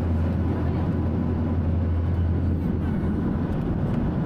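Steady low drone of an airliner cabin: jet engine and airflow noise heard from inside the passenger cabin.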